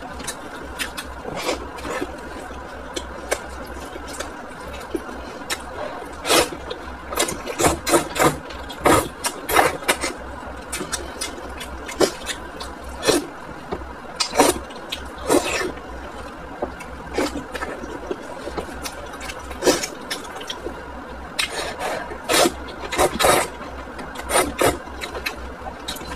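Close-up slurping and chewing of hot and sour noodles in broth: irregular wet slurps and mouth noises every second or so, some drawn out, over a steady low hum.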